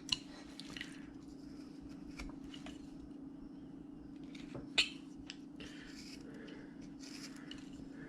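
Carving knife slicing and scraping into wood in short, irregular cuts, with one sharper click about five seconds in, over a steady low hum.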